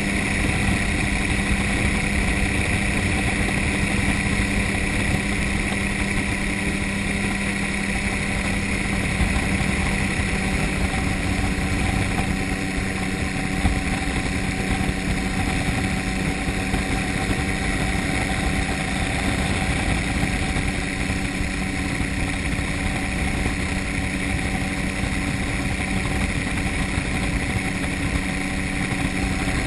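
Gyrocopter in flight, its engine and propeller running steadily at an even pitch, with a rough low rumble of wind and airflow over the microphone.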